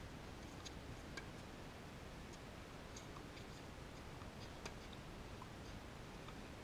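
Faint, steady outdoor background noise with a few soft, scattered ticks at irregular moments.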